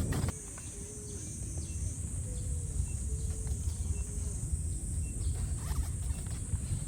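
Outdoor summer ambience: a steady high-pitched insect drone over a low rumble, with a few faint short tones now and then.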